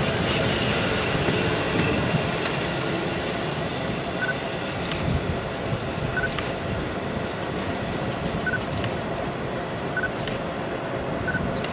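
Hitachi electric multiple unit train running away from the platform, a steady rumble of wheels and running gear that eases off as it goes, with a few clicks. Short high beeps repeat every second or two from about four seconds in.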